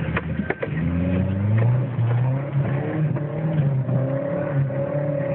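Car engine revving up and falling back again and again as the car drives off-road through mud, heard from inside the cabin, with a few sharp knocks about half a second in.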